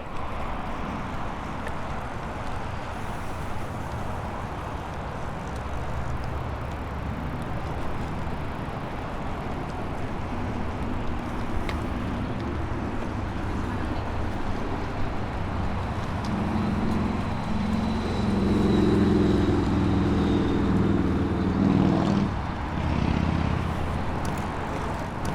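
Outdoor ambience recorded from a moving bicycle: a steady rush of wind and road noise, with a low engine-like hum that builds up, is loudest a few seconds before the end, then breaks off, like road traffic going by.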